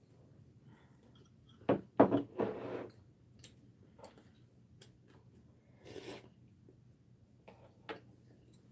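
Mealtime tableware sounds: utensils knocking and clattering against ceramic bowls and a wooden table, loudest about two seconds in, with a few softer clicks and a brief scrape near six seconds.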